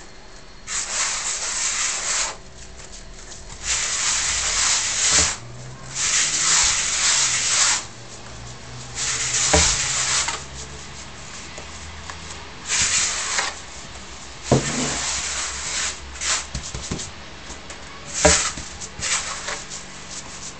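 Hands rubbing damp semolina against the bottom of a wooden bowl, making repeated rasping strokes of a second or two each with short pauses between them. The strokes grow shorter and quicker near the end.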